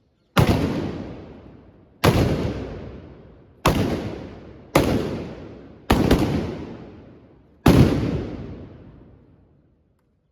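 Six blasts from trabucs, blunderbusses firing blank black-powder charges, going off one after another at uneven gaps of about one to two seconds. Each is a sudden loud bang followed by a long echoing tail.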